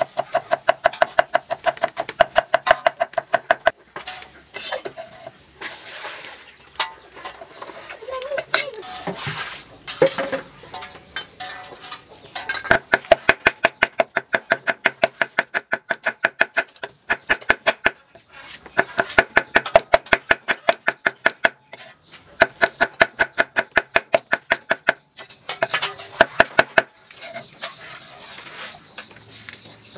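Cleaver chopping fast on a thick wooden chopping block, mincing food in long runs of rapid strikes, several a second, each ringing briefly off the wood. The runs break off a few times, with a slower, irregular stretch of knocks and scraping in the middle.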